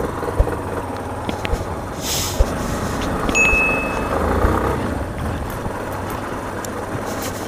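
Motorcycle riding over a rocky gravel dirt road: a steady rumble of engine and tyres on stones, with a couple of sharp knocks from bumps in the first few seconds. A brief high whistle-like tone sounds about three and a half seconds in.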